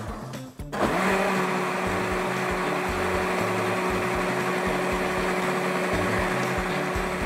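Countertop blender motor spinning up about a second in, then running at a steady high speed with an even hum as it blends watermelon juice with strawberries into a liquid drink.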